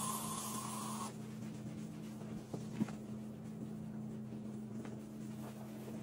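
Aerosol stainless-steel cleaner hissing as it is sprayed onto a fridge door, stopping about a second in, followed by a cloth wiping the steel with soft rubbing and a sharp click near the middle. A steady low hum runs underneath.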